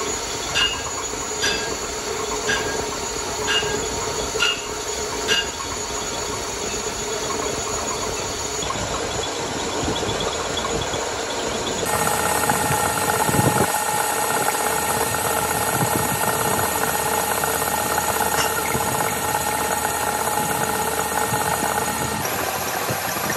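Metal lathe running as it turns a steel truck axle spindle, the cutting tool scraping across the spinning spindle. In the first few seconds there are sharp, ringing ticks about once a second; about halfway through, the sound shifts to a brighter, steadier whine.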